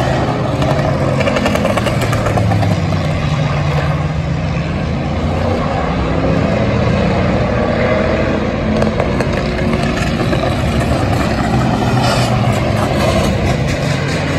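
Race car engines running loud on the speedway track, several cars at once, a continuous engine din with no break.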